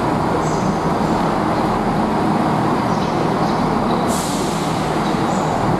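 Chiltern Railways Class 168 diesel multiple unit 168002 running its diesel engines under power as it pulls out of the platform, a steady loud rumble. About four seconds in comes a sudden burst of compressed-air hiss that fades over about a second.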